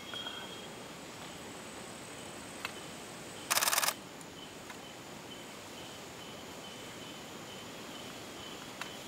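Rainforest background of steady insect buzzing. About three and a half seconds in, a camera shutter fires a rapid burst for under half a second, the loudest sound, with a few faint single clicks elsewhere.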